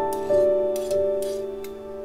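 Background music of held, soft keyboard notes, with a few light knocks of a cleaver chopping red chilies on a wooden cutting board.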